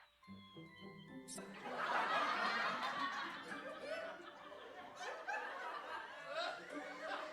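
A canned studio-audience laugh track: many people laughing and chuckling together, swelling up about a second in. Orchestral film score plays underneath.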